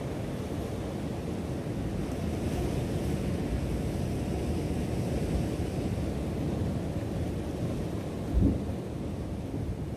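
Ocean surf washing over a rock shelf and wind on the microphone, a steady low rumble; one short low thump about eight seconds in.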